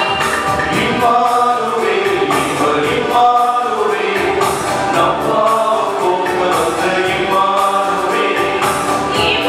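Mixed choir of men's and women's voices singing a hymn in Tamil together, amplified through stage microphones.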